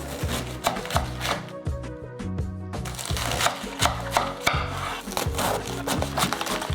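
Knife cutting food on a wooden board in rapid, uneven strokes, over background music with a steady bass line.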